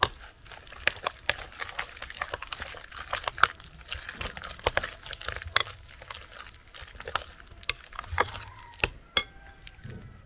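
A spoon stirring a wet mash of grated plantain and starch in a glass bowl: squelching with many irregular clicks and scrapes of the spoon against the glass.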